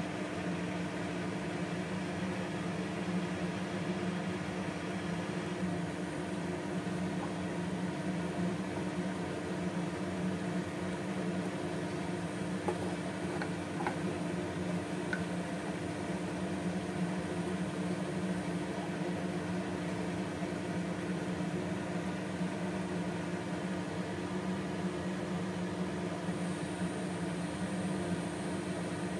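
Steady humming whir of a kitchen appliance's fan motor. About halfway through there are a few faint taps from a wooden spatula against a steel pot.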